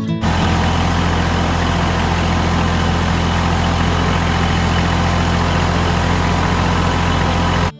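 Farm tractor engine running steadily with a deep, even drone. It cuts in suddenly and cuts off suddenly near the end.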